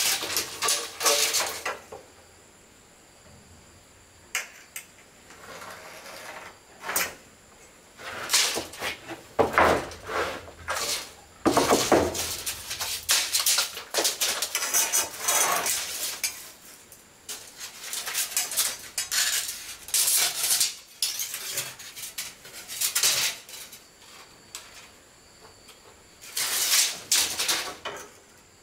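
Irregular bouts of scraping and clattering, each lasting a second or two, with short quiet gaps between them. Behind them runs a faint, steady, high insect trill.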